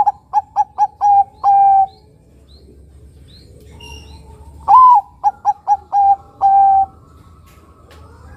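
Zebra dove (perkutut), a Bangkok–local crossbreed, cooing its song twice. Each phrase opens with a loud note, runs into four short quick notes and ends on a longer drawn-out note, with a pause of about three seconds between the two phrases.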